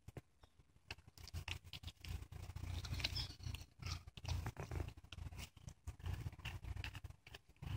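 Small dog growling low and gnawing a bone, with scattered clicks of teeth on bone. The growl guards the bone from a turtle that is nosing at it.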